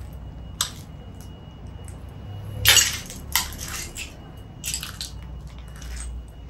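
Footsteps crunching on debris: a handful of irregular gritty crunches, the loudest about two and a half seconds in, over a low rumble.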